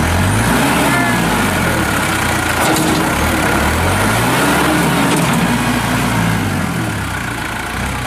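2006 New Holland TC55DA compact tractor's diesel engine running as the tractor is driven, its engine speed rising and falling twice.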